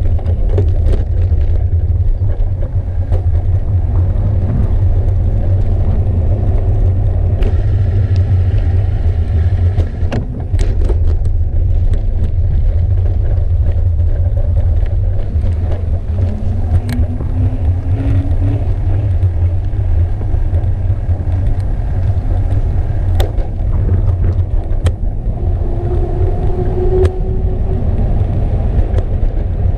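Steady low rumble of wind and road vibration picked up by a handlebar-mounted camera on a bicycle rolling along a paved path, with a few sharp clicks and knocks from bumps.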